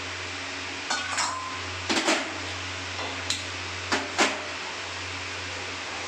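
Steel pans and cooking utensils clanking against each other and the stove: about five sharp metallic knocks and scrapes, one ringing briefly. A steady low hum runs underneath.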